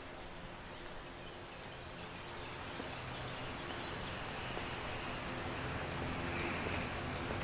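Outdoor ambient noise: a steady hiss with a faint low hum underneath that grows gradually louder.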